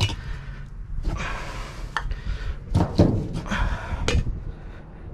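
Used oil filters being handled and dropped into a container: a few thunks and clunks with rustling and scraping between them, the heaviest thud about three seconds in.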